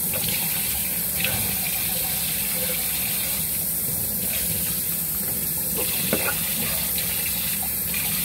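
Kitchen tap running steadily into the sink, with a few faint clicks over the flow.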